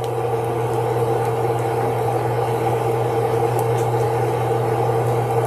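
Steady low hum of a running kitchen range hood fan. About three and a half seconds in, there are a couple of faint light clicks of cutlery.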